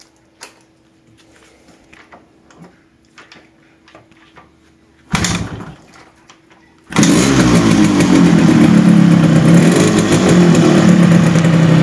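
Yamaha RX-King's two-stroke single-cylinder engine being kick-started: a short kick stroke about five seconds in, then about two seconds later the engine catches and runs loudly and steadily. It is running on a newly fitted NPP carburettor at its stock jetting, with no jet changes.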